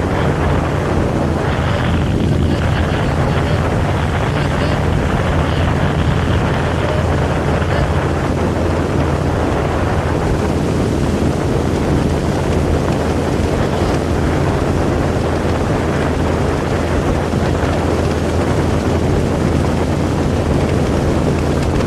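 Speedboat running fast over the water: a steady engine drone under rushing wind and water noise, with wind buffeting the microphone.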